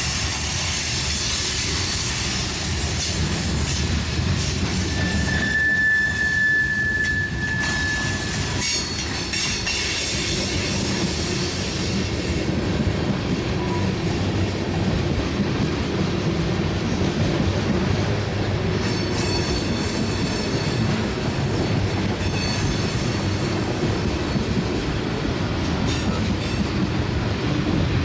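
BNSF freight train's boxcars and tank cars rolling past close by: a steady rumble and rattle of wheels on the rails. About five seconds in, one steady high wheel squeal lasts about three seconds.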